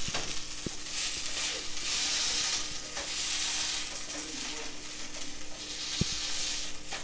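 Shredded hash browns sizzling in oil in a nonstick frying pan, the hiss swelling and easing as a plastic slotted spatula presses and turns them. A couple of dull knocks, one near the start and a louder one about six seconds in.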